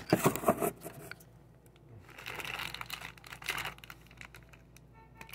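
Handling knocks close to the microphone in the first second, then a clear plastic bag crinkling as it is picked up and held out.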